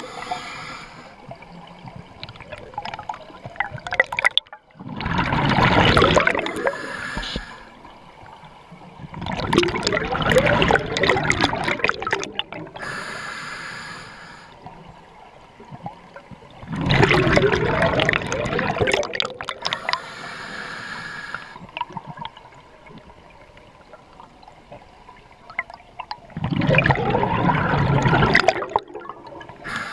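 Scuba diver breathing through a regulator underwater: four long bursts of exhaled bubbles several seconds apart, with a fainter hiss of inhaling through the regulator between them.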